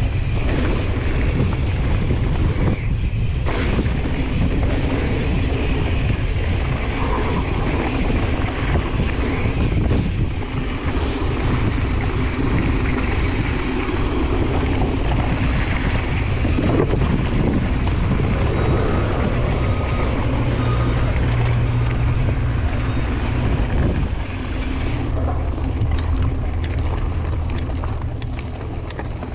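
Wind buffeting the microphone and mountain bike tyres rolling fast over a dirt and gravel trail, a steady rushing rumble. About four seconds before the end the wind drops and a run of sharp clicks is heard.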